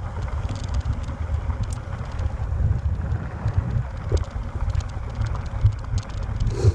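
Wind buffeting the microphone: a steady, gusty low rumble, with scattered faint clicks throughout.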